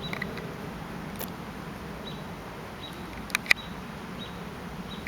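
A cat sneezing twice in quick succession, two short sharp sneezes about three and a half seconds in, over a low steady hum.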